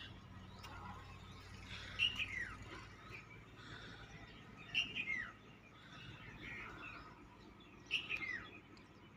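Birds chirping: a short phrase comes back every two to three seconds, each time ending in a falling whistle, with softer chirps in between.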